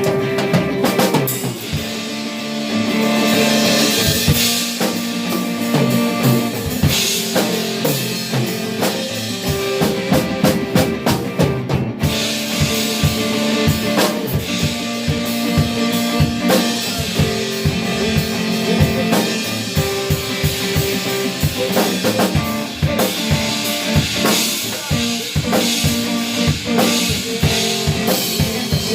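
Live band playing a steady groove on drum kit, with held guitar or keyboard notes over it.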